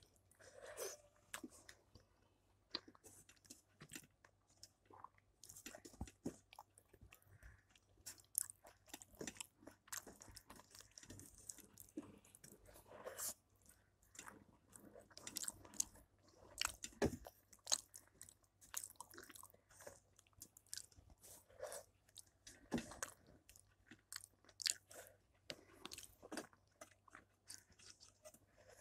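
Close-up eating sounds of a person eating rice and curry with his hand: irregular chewing, smacking and soft crunching, mixed with fingers working food against a steel plate and bowls.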